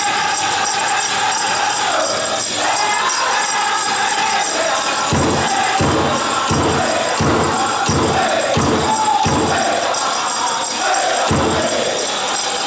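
A powwow drum group singing a Chicken Dance song in high, held voices over a big drum, with the dancers' leg bells jingling. About five seconds in comes a run of heavy drum strokes, roughly three every two seconds, and one more near the end.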